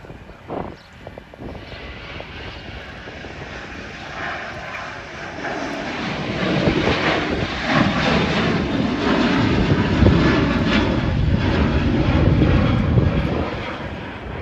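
Airplane engines getting louder as an aircraft passes, loudest from about seven to thirteen seconds in with a deep rumble, then fading near the end.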